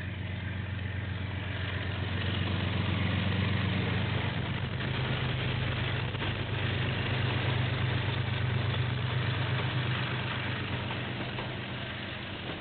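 KiwiRail diesel freight locomotive passing, its engine running with a steady low drone that grows louder as it goes by and eases off near the end as the wagons follow.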